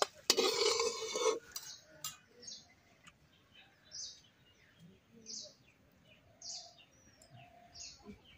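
Cooking oil poured from a plastic bottle into an empty aluminium wok: a splashing pour lasting just over a second at the start. After it, a bird chirps over and over, short chirps about once a second.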